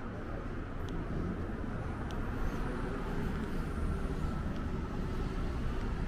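Motor vehicle traffic close by on a street: a steady low rumble of engine and tyres that swells about a second in and holds, with a few faint clicks.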